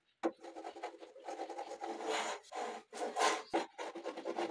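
Wood scraping and rubbing against a wooden panel in many quick, irregular strokes, as the board is handled and worked along its edge.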